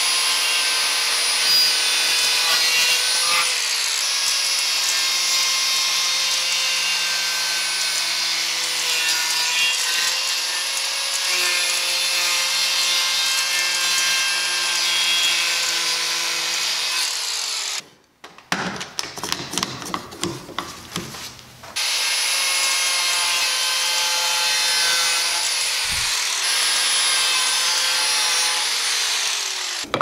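Angle grinder fitted with a Graff Speedcutter wood-cutting blade running at full speed and cutting through wooden boards: a steady high whine mixed with the rasp of the blade in the wood. Partway through it breaks off for a few seconds of irregular knocks, then runs and cuts again, and near the end its pitch falls as the grinder spins down.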